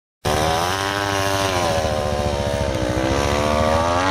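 Big-bore 700cc-class two-stroke dirt bike engine pulling hard under load up a sand dune. It cuts in suddenly, its pitch sags about two and a half seconds in, then climbs again as the revs build.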